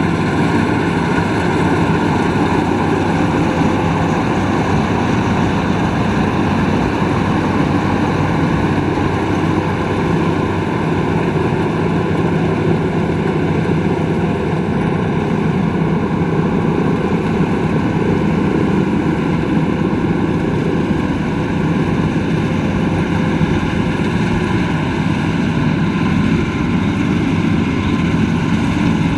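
Rice combine harvester running steadily, a continuous engine and machinery drone with no change in pitch or level.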